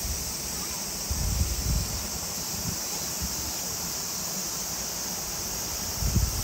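Steady high-pitched outdoor hiss, with low rumbles of wind on the microphone about a second in and again near the end.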